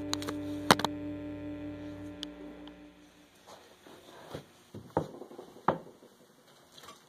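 Background music fading out over the first few seconds, with two sharp clicks about a second in. Then soft thuds and light movement as a person walks barefoot across carpet and handles things at a desk, two of the knocks louder, about five and six seconds in.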